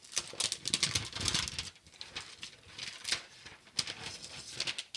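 Protective wrapper crinkling and rustling as it is peeled off a new Apple Magic Keyboard, in irregular bursts.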